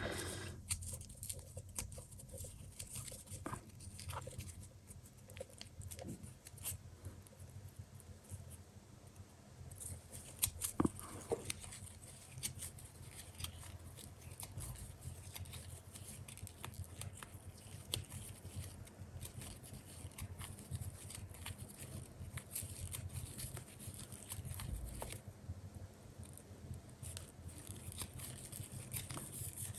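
Faint rustling and light clicks of paper yarn being worked with a 3.5 mm crochet hook, making a starting chain stitch by stitch, over a low steady hum.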